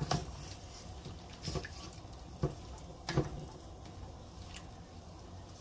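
Spoon stirring a wet chicken and bamboo-shoot curry in a pot, with four short knocks of the spoon against the pot about a second apart over a low steady hum.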